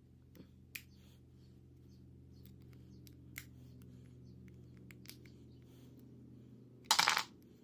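Thin plastic pick working along the glued seam between a Samsung Galaxy S8's back glass and metal frame: faint scattered clicks and scrapes, then a louder scrape of about half a second near the end, over a steady low hum.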